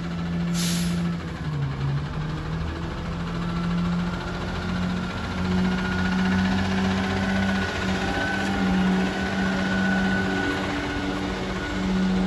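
Rear-loader garbage truck's engine running with a steady low hum and a faint high whine as the truck approaches and drives past. A short hiss of air about half a second in.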